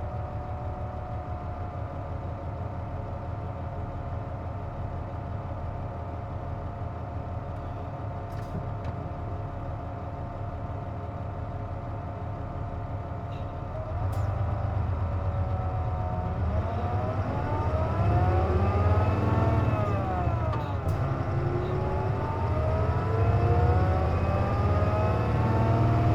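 Hino Blue Ribbon KC-JP250NTN diesel bus heard from inside, idling at a stop with steady tones, then pulling away about halfway through. The engine note rises and drops back twice as it accelerates through the gears. The air conditioning is running, which gives this bus its odd noise.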